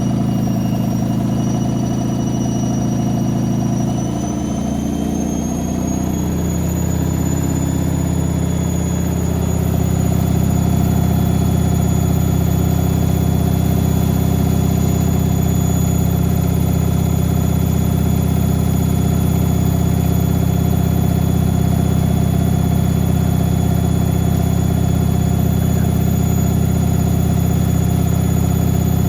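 Whirlpool AWM 864 Aquaprogramm washing machine running, its motor and drum with a steady whir. About five seconds in, the pitch rises as the drum speeds up, and it then runs at a steady higher speed.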